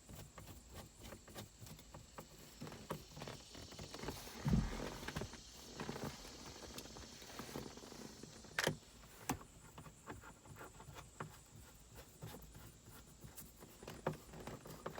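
Screws being driven back into car interior trim with a hand screwdriver: scattered small clicks, ticks and scrapes of metal on plastic, with a low thump about four and a half seconds in and two sharp clicks near nine seconds.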